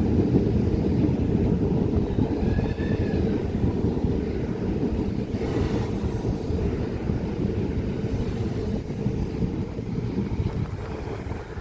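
Class 395 Javelin electric multiple unit rolling slowly past, a steady low rumble of wheels and traction that eases off near the end. There is a brief faint higher tone about two to three seconds in.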